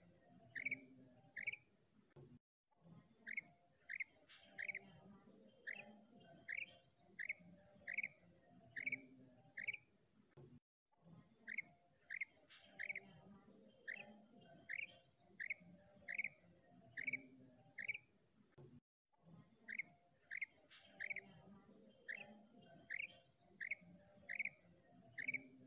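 Female common quail calling: short high chirps repeated about twice a second, over a steady high-pitched drone. The sound breaks off for a moment about every eight seconds and starts again.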